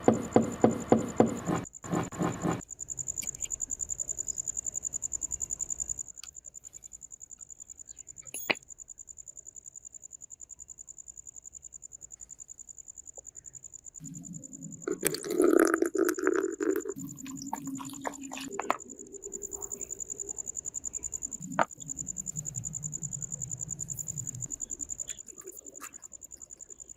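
Crickets chirring in a steady high tone throughout. Over it come a quick run of evenly spaced knocks in the first two seconds or so, a few sharp single clicks, and a louder clattering burst about halfway through.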